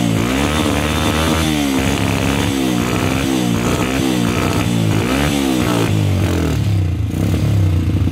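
Small four-stroke motorcycle engine revved in a series of quick throttle blips, six or seven rises and falls in pitch, then settling into a steady, raised idle near the end.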